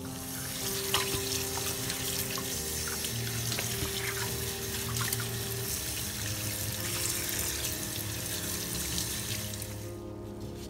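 Tap water running and splashing into a glass dish of raw chicken pieces in a stainless steel sink as gloved hands rub and wash the meat; the water stops near the end.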